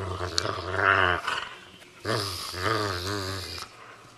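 Dog growling in two long, wavering growls, the second beginning about two seconds in.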